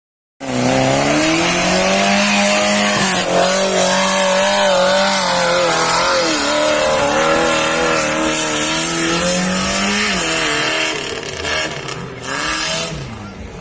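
Engine of a 4x4 off-road vehicle running hard at high revs, its pitch wavering slightly as it works, then dropping about ten seconds in and easing off.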